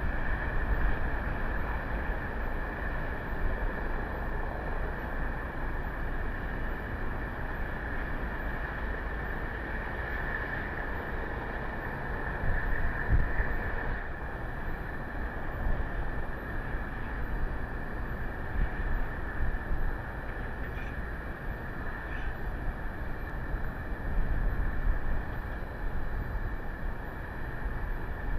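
Steady rumbling outdoor noise with wind gusting against the microphone and a constant high whine running through it.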